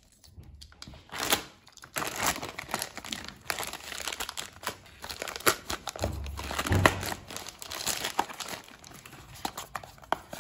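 Plastic packaging crinkling and rustling as it is handled and opened, with a low thump about two-thirds of the way through.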